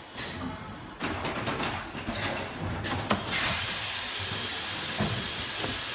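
Full-automatic PET bottle blow molding machine cycling: a run of sharp clicks and clunks from its pneumatic mechanism for about two seconds, then a sudden hiss of compressed air a little past halfway that holds steady.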